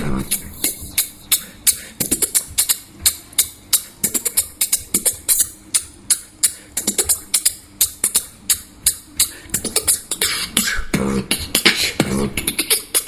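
Beatboxing: a fast, rhythmic run of sharp percussive mouth clicks and hits, with a few short pitched vocal bass tones near the end.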